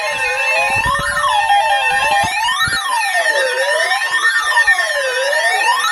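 Tornado warning alert sound from a TV broadcast: electronic siren tones wailing up and down about every second and a half over a steady high tone, with music beneath.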